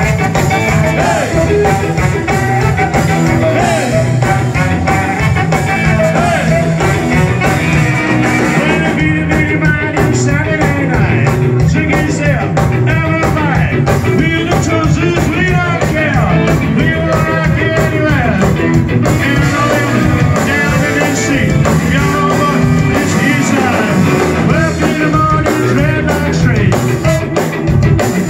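Ska band playing live: trumpet and trombone over electric guitar and a full rhythm section, with a singer's voice.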